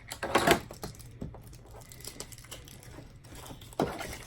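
A parcel being handled and opened by hand: rustling packaging with scattered taps and knocks, with louder rustles about half a second in and again near the end.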